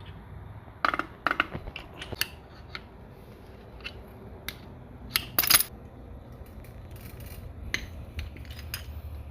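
Steel transmission parts and hand tools clinking and knocking as they are handled: scattered sharp metallic clicks, the loudest a little past halfway, over a steady low hum.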